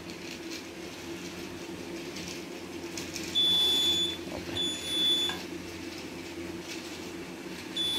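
Piezo alarm buzzer of a model railway-crossing gate giving two high, steady beeps, each under a second, about three and a half and four and a half seconds in: the crossing warning that sounds as the gate closes for the approaching train. A steady low hum from the running toy train's motor continues underneath.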